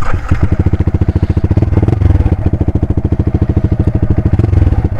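Motorcycle engine running at a steady idle, its exhaust giving an even, rapid train of low pulses.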